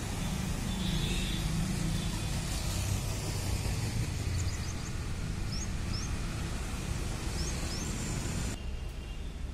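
Outdoor street ambience: a steady rumble and hiss, with a few short high bird chirps in pairs through the middle.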